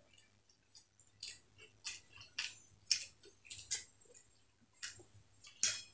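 People slurping and chewing egg chow mein noodles in quick, irregular slurps and smacks.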